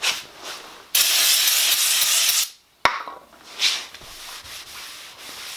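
Hand work on a Ford 9-inch rear axle housing: parts rubbing and scraping, a loud steady hiss lasting about a second and a half, then a single sharp click.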